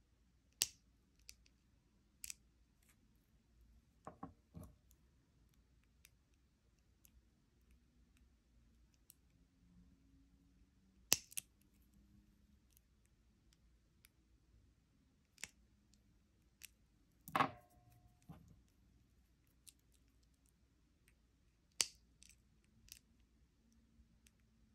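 Small flush cutters snipping the ends of 0.5 mm elastic stretch cord: about a dozen faint, sharp snips at irregular intervals as each tail is trimmed off.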